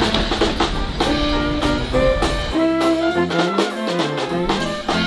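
A Dixieland jazz band playing live: brass horns carry the tune over a rhythmic beat, with a sousaphone bass line moving from note to note.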